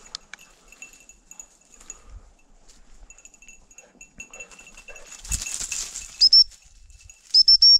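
Two loud blasts on a high-pitched gundog whistle near the end, a short one and then a longer one. Before them, faint high jingling and a brief rustle about five seconds in.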